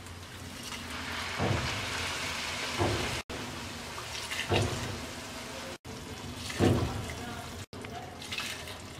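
Hot water poured from a glass cup into a pot of broken rice and vegetables, splashing as it lands, with a few louder splashes. The pouring cuts off abruptly several times.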